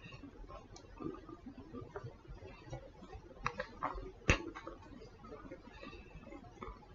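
Grey kitten suckling and nuzzling at a man's earlobe: faint scattered clicks and smacks, with a sharper click about four seconds in.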